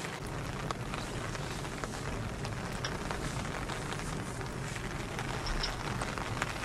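Heavy rain drumming on the roof and windows of a car, heard from inside the cabin: a steady hiss with scattered ticks of single drops.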